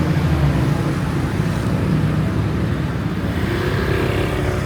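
City street traffic: vehicle engines running close by, with one revving up about three and a half seconds in.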